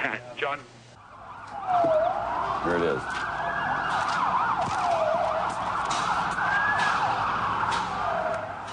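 Several emergency vehicle sirens wailing together, starting about a second in. Each sweeps slowly up and down in pitch, and the overlapping wails cross one another.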